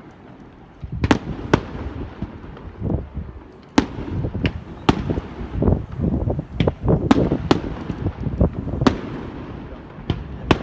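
Fireworks display going off: a rapid, irregular series of sharp bangs and crackles over a continuous low rumble, growing denser after about four seconds.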